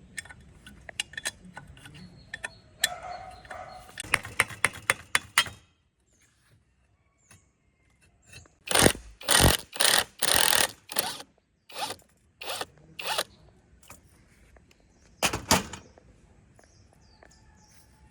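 Hand work scraping on metal: scattered clicks and light knocks, then after a short pause a run of loud scraping strokes about half a second each, with a last pair a little later.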